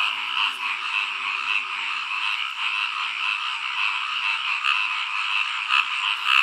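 Dense chorus of frogs calling: a continuous pulsing trill of many overlapping voices.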